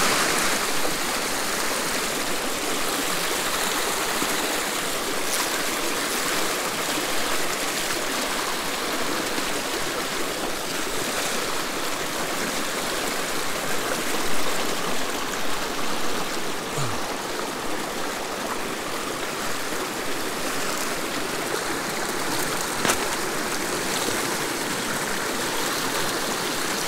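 Small mountain stream running steadily, an even rush of flowing water.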